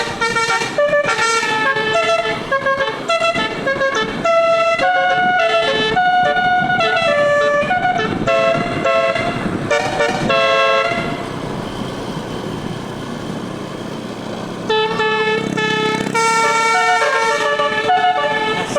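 A bus's 12-note telolet musical air horn plays a tune of short, stepping notes. It stops for about four seconds past the middle, leaving a lower rushing noise, then starts the tune again.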